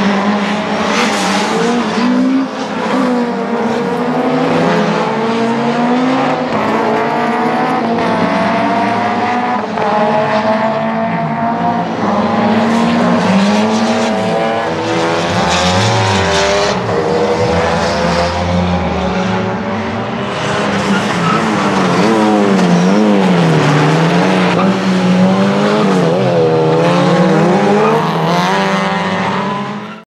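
Renault 5 GT Turbo's tuned 1.4-litre turbocharged four-cylinder engine, pushed to about 220 hp, at racing speed on a circuit. It revs up and drops back again and again as it runs through the gears, heard from trackside.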